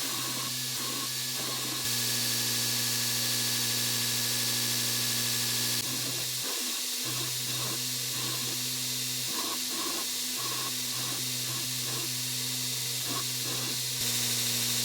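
Knife-making belt grinder running, with a steady motor hum under the loud hiss of the abrasive belt grinding steel knife blades. The sound shifts abruptly a few times: louder about two seconds in, somewhat quieter midway, and louder again near the end.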